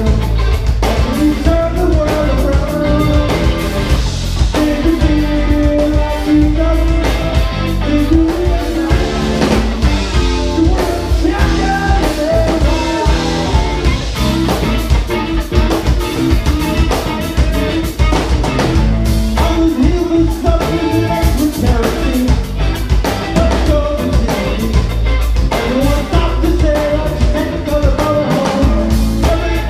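Live rock band playing: a Yamaha drum kit, electric guitar and bass guitar, with a man singing lead into the microphone. The music is loud and steady.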